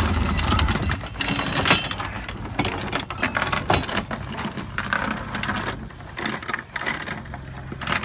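Metal anchor chain clanking and rattling in irregular clinks as it is hauled aboard over a boat's bow fitting, with a low hum that stops about a second in.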